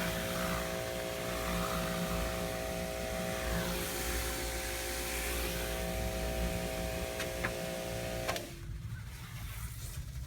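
Pressure washer running with a steady motor hum and the hiss of spraying water, cutting off suddenly near the end.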